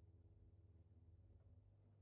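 Near silence between guitar chords: a faint steady low hum, with the last faint tones of the previous chord dying away.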